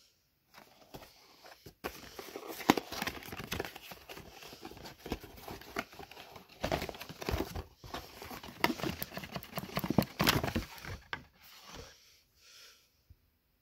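Cardboard retail box being opened and handled, with rustling, scraping and crinkling of packaging as compression shorts and a protective cup are pulled out. It is a string of clicks and crackles, loudest about three seconds in and again near ten seconds, and it stops a couple of seconds before the end.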